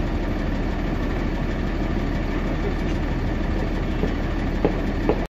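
A motor idling steadily close by, with a constant low hum. There are two short knocks near the end.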